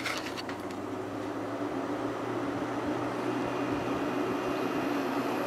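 Kenmore 5,000 BTU window air conditioner running on low fan speed: a steady rush of air over a low hum, growing gradually louder as it spins up after being switched on.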